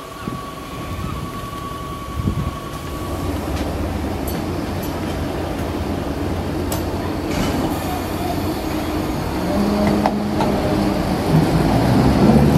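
Class 483 electric train (ex-London Underground 1938 tube stock) pulling away from the platform, its motor hum and wheel noise growing louder near the end as it passes close by, with a few sharp knocks. A steady high tone stops about three seconds in.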